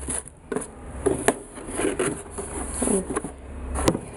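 Tissue paper rustling and a cardboard shoe box being handled, with two sharp clicks, about a second in and near the end.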